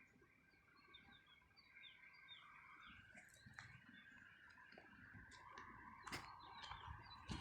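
Faint high chirps, like small birds calling, repeated several times, with a couple of sharp clicks near the end.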